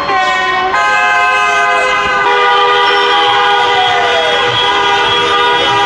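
Several car horns blaring at once in celebratory honking, held long and overlapping. The mix of tones shifts as horns start and stop, about a second in and again about two seconds in, and one tone slides downward midway.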